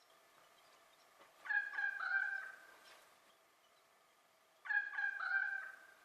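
A bird calls twice, about three seconds apart, each call about a second long, over a faint steady background.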